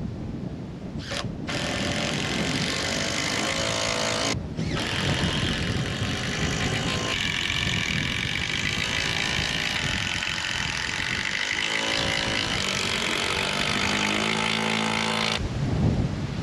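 A motor running with its pitch shifting up and down, over heavy wind noise on the microphone.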